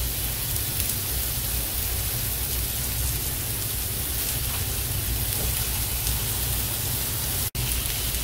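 Chicken seekh kebabs sizzling steadily as they shallow-fry in a little oil in a flat nonstick pan over a low flame. The sound drops out for an instant near the end.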